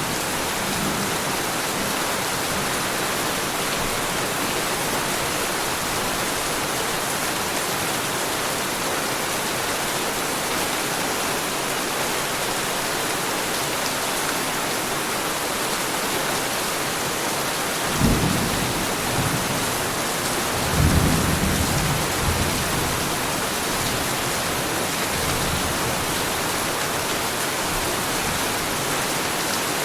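Heavy rain falling with a steady, even hiss. Thunder rumbles twice past the middle: one clap about eighteen seconds in, then a longer roll a few seconds later.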